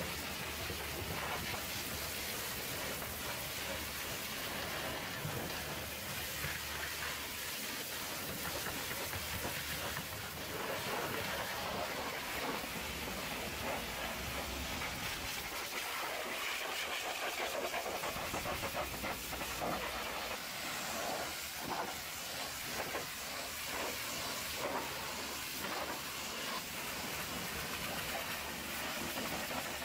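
High-pressure washer lance blasting a water jet against a truck's steel fuel tank and the trailer's undercarriage: a steady hiss with spatter, unbroken throughout.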